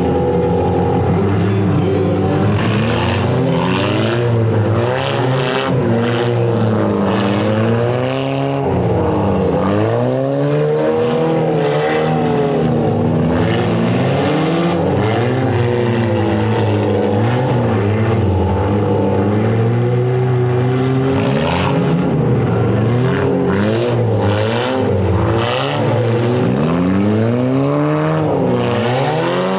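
Several front-wheel-drive stock cars racing on a dirt track, their engines revving up and down over and over, with several engine pitches overlapping.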